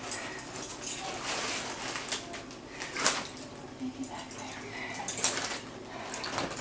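Scattered sharp clinks and light knocks, the two loudest about three seconds and five seconds in.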